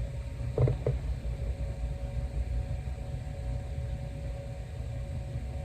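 Steady low background rumble with a faint hum, broken by two soft knocks in quick succession about half a second in.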